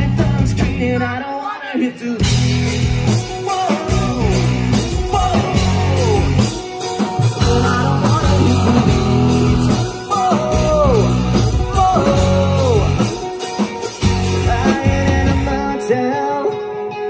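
Live rock band playing: a singer's voice through the microphone over electric guitars and drums.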